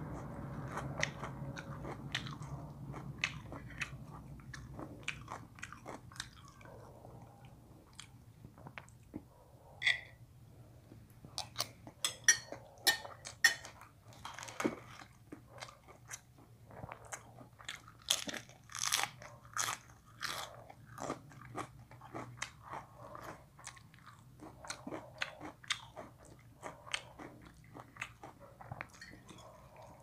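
A man chewing and crunching raw lettuce and fresh leafy greens close to the microphone, with a run of loud, crisp crunches in the middle.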